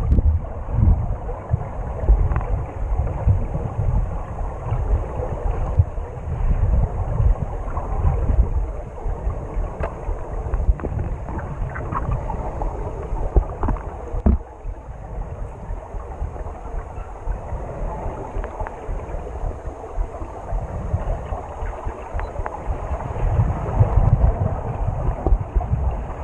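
Muffled underwater water noise heard through a submerged camera's waterproof housing: a low, uneven rumble of water moving past as it is pushed along, with scattered small clicks and knocks.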